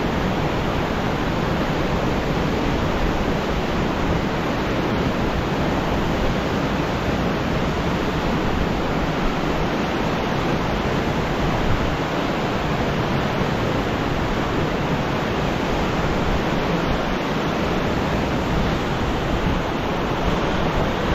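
Fast, muddy river rushing through whitewater rapids: a loud, steady rush of water with no let-up.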